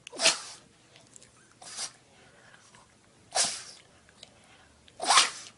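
A dog sneezing again and again: three sharp sneezes spread over the few seconds, with a fainter one between the first two.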